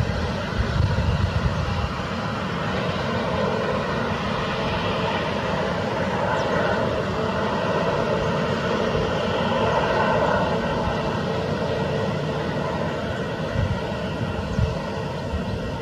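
Boeing 737 airliner's twin jet engines running as it rolls along the runway after touchdown, a steady rushing sound that swells to its loudest about ten seconds in and then eases off.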